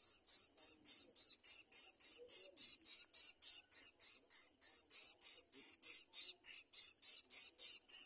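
Greater coucal nestlings hissing in a steady rhythm, about three and a half raspy hisses a second, stopping abruptly just after the end.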